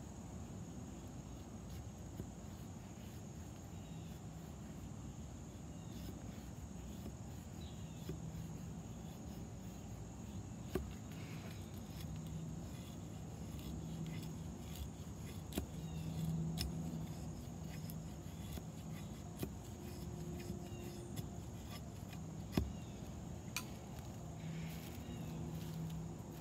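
A knife blade shaving curls off a stick of wood, with a few sharp clicks of the blade, over a steady high drone of insects such as crickets.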